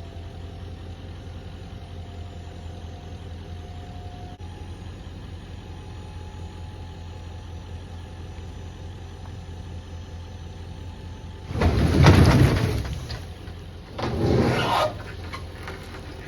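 An engine running steadily at a low hum, with a loud rush of noise lasting about two seconds near the end and a second, shorter one soon after.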